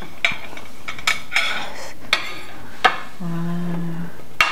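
Cutlery clinking and scraping against plates and bowls at a meal, about six sharp clinks, with a short low hum near the end.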